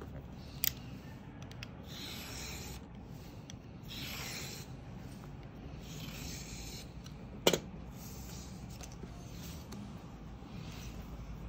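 Utility knife blade drawn along an acrylic ruler, slicing through pattern paper in several short rasping strokes to trim an edge. A sharp tap a little past halfway is the loudest sound.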